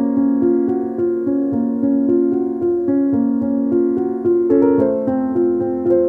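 Background piano music: a repeating pattern of notes over held chords, the harmony changing about four and a half seconds in.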